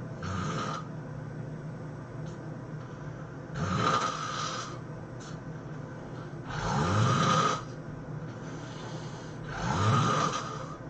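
A person snoring in sleep: four snores about three seconds apart, each rising in pitch.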